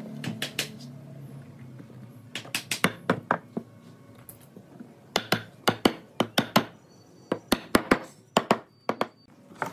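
A claw hammer drives nails through a pine top rail into the bench's leg posts. The strikes come sharp and quick, in several short bursts.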